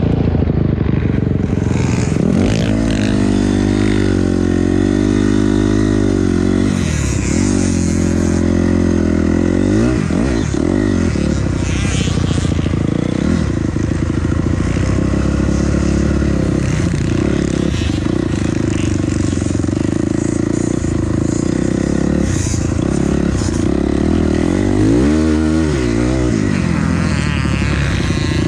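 Dirt bike engine under hard riding on a motocross track, its pitch rising and falling again and again as the throttle is opened and rolled off through the corners and straights.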